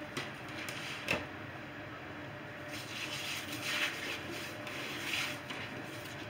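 Hands rubbing salt over a raw lamb shoulder: faint rubbing and handling noises, with a single knock about a second in.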